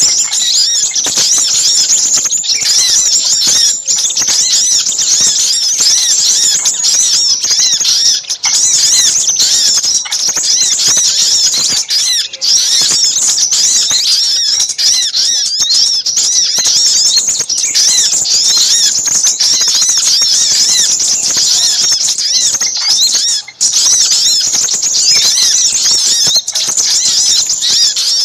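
Dense, busy chorus of small-bird chirps and twitters, a bird-lure mix of little spiderhunter and crimson sunbird calls. Many quick, high calls overlap without a break, with only a few short dips in level.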